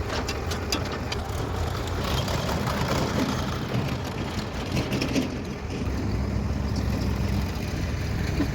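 Diesel engines of a backhoe loader and tractors running steadily, a low rumble, with a few light clicks in the first couple of seconds.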